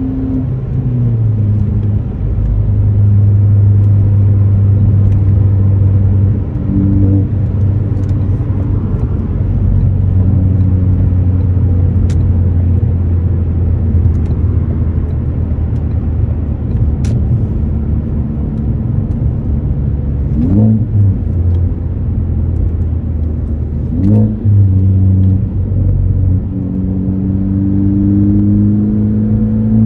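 2018 Ford Focus ST's turbocharged 2.0-litre four-cylinder, breathing through an AWE axle-back exhaust, drones at steady revs while cruising. About 20 and 24 seconds in it gives two brief rev blips. In the last few seconds the revs climb steadily as the car accelerates.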